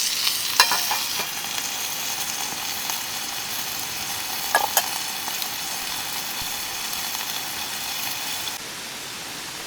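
Food sizzling in a pan over a campfire, a steady frying hiss, with a few light clicks of a utensil against the pan.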